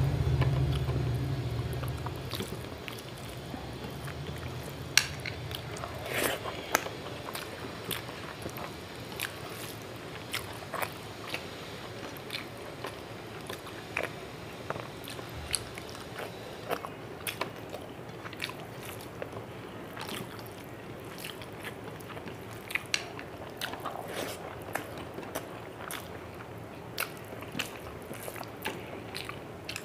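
Close-miked eating sounds of a person eating rice and fish curry with her fingers: chewing, wet mouth smacks and many short sharp clicks scattered throughout. A low hum fills the first two seconds.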